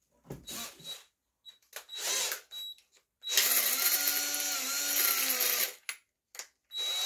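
Electric drill run in two short bursts, then for about two and a half seconds as it bores into the winding of a welding transformer, its pitch dipping slightly now and then; another short burst comes near the end.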